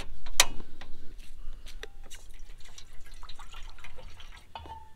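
Water dripping and trickling, with a sharp click just under half a second in and scattered smaller ticks and plinks.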